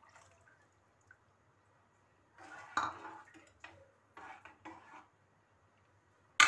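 A metal spoon stirring custard in an aluminium saucepan, scraping and clinking against the pan in a run of strokes about halfway through. Near the end comes one sharp knock of utensil on pan.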